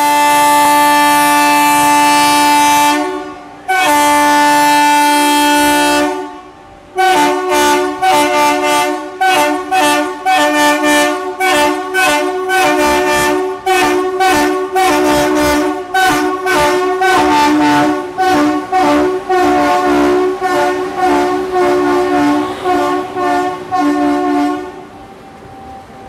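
The high-tone horn of a WCAM-3 electric locomotive sounding for departure: two long blasts, then about seventeen seconds of rapid short toots, two or three a second, shifting between pitches in a musical pattern. It fades near the end as the train moves off.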